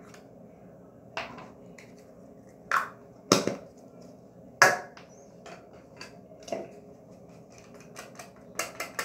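Scattered sharp clicks and taps of small plastic makeup items being handled: a makeup brush, then a powder compact opened. The loudest clicks fall in the first half, with a quick run of smaller ones near the end, over a faint steady hum.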